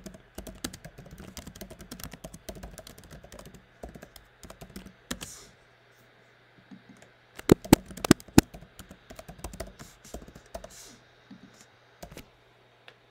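Computer keyboard typing, a quick irregular run of key clicks that pauses briefly about six seconds in, followed by a few harder strokes.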